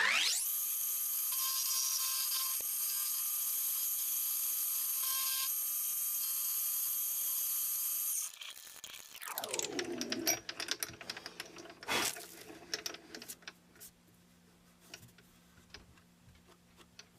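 Mini milling machine's spindle motor running at speed with a steady high whine. About eight seconds in it switches off, and its pitch falls as it winds down. Scattered clicks and a knock follow, with a faint low hum.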